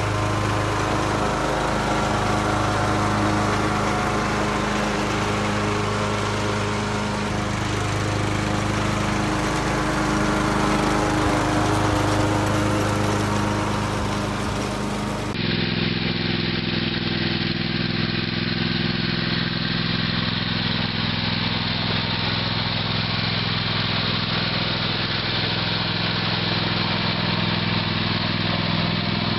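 Riding lawn mower engine running steadily. About halfway through, the sound cuts abruptly to a second riding mower, an orange Husqvarna, its engine running steadily with a duller, lower sound.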